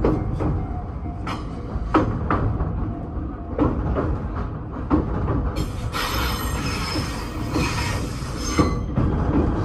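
Electric train running along the track, its wheels clicking in pairs over the rail joints, with a high-pitched wheel squeal setting in about halfway through and dying away near the end.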